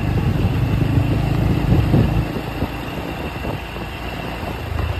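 Motorcycle engine running as the bike rides along, heard from the saddle. The low rumble is heavy for about two seconds, then drops and stays lower.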